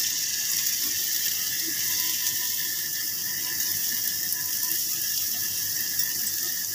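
Chopped green onion, carrot and cabbage sizzling in hot ghee in a wok, a steady hiss as the vegetables are lightly sautéed.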